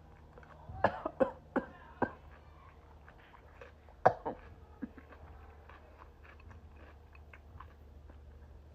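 Cucumber salad being bitten and chewed close to the microphone: a run of crisp crunches in the first couple of seconds, another sharp crunch about four seconds in, then quieter chewing.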